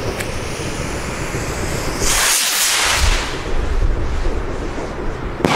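Finned firework rocket (Leslie Spider) going off, with wind rumbling on the microphone: a loud hissing rush about two seconds in that lasts about a second, then a sharp crack near the end followed by more hissing.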